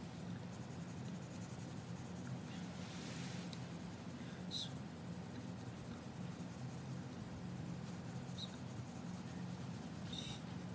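A coloured pencil scratching on paper as it shades in a drawing, a soft steady rasp with three brief sharper strokes. A steady low hum runs underneath.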